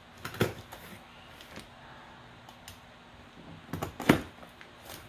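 Cardboard shipping box being handled and opened by hand: a knock about half a second in, then a quick cluster of knocks and scrapes near the end, the loudest about four seconds in.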